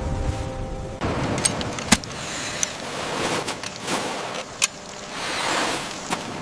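Heavy rain and wind, a steady hiss that swells and eases, with a few sharp taps like big drops striking, the loudest about two seconds in. Held tones fade out about a second in, where the rain takes over.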